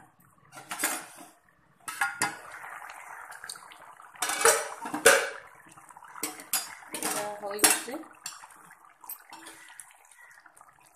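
An aluminium lid and a metal ladle clank against a wok, a dozen or so sharp strikes, some ringing, loudest about halfway through. Between them the curry bubbles at a full boil.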